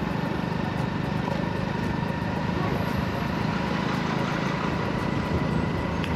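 Hero Splendor XTEC motorcycle's small single-cylinder engine running at a steady low speed while riding, with wind and road noise.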